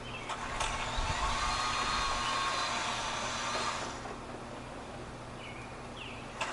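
Electric motor of a Ryobi 40-volt cordless lawn tool running with a steady whine. It works harder and louder for about three seconds, then eases off, with a short click near the end.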